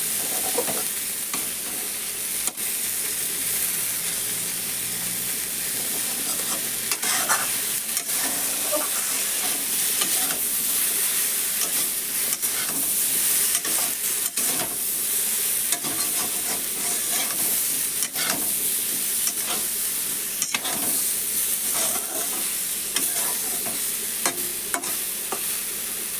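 Eggplant and prawn pieces sizzling in hot oil in a kadai: a steady frying hiss, with the repeated scrape and knock of a spatula stirring them through the pan.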